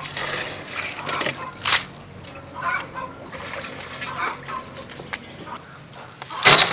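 Water trickling and splashing around freshly washed live crabs in a stainless-steel colander, with a few sharp knocks and a louder one near the end.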